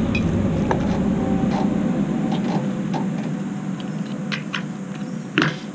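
Light clicks and knocks from a Hallmark pop-up truck camper's roof being lowered and latched, with a sharper knock near the end. Under them a low vehicle rumble fades gradually.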